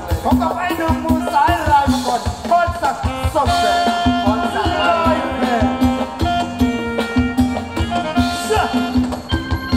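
Live band playing Thai ramwong dance music: a steady drum beat under a repeating bass note, with a wavering melody line over it.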